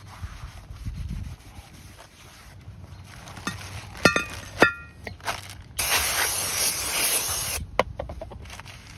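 A shop towel rubbing on a new cast-iron brake rotor, with plastic bag rustling. Two short metallic clinks with a brief ring as the rotor is handled about four seconds in, then a loud hiss of aerosol brake cleaner sprayed for about two seconds to strip the rotor's protective oil.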